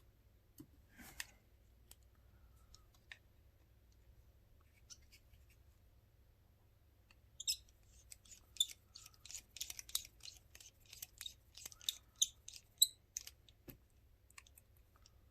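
Faint small plastic clicks and crackles from handling the parts of a disassembled flip phone. A few scattered clicks come first, then a quick, dense run of them from about seven to thirteen seconds in.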